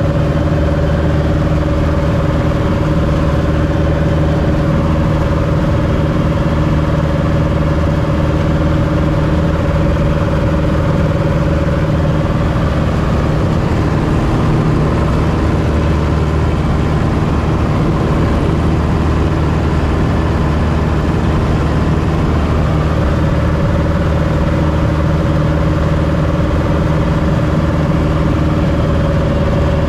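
Light airplane's piston engine and propeller droning steadily, heard from inside the small cabin. The engine note shifts slightly for several seconds in the middle.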